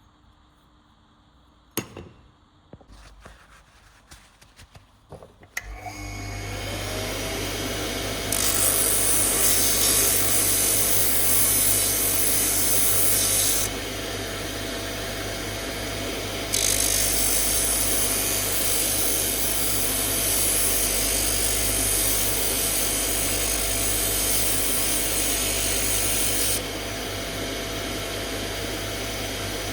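A few handling knocks and clicks, then an electric power tool starts up about six seconds in and runs steadily. It works wood in two long, loud passes, with the motor running on its own between them.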